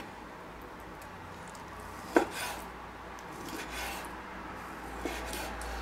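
Kitchen knife slicing raw chicken breast into strips on a wooden cutting board. There are short scraping cuts, a sharp knock of the blade on the wood about two seconds in, and a lighter knock near the end.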